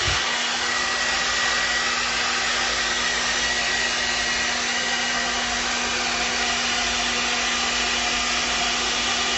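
Handheld hairdryer running steadily on its low setting, a constant blowing hiss with a steady hum, drying a dog's wet coat.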